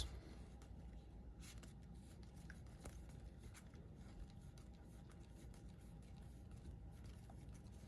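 Near silence with faint, scattered clicks and rustles of trading cards being handled and flipped through by hand.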